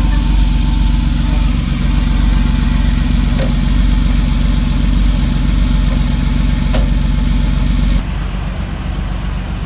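Porsche 911 Turbo Cabriolet's flat-six engine idling steadily, with two faint clicks in between; it drops in level about eight seconds in.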